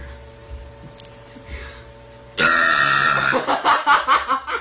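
A person's voice: a sudden loud throaty sound starting about halfway through, followed by a run of short choppy vocal sounds.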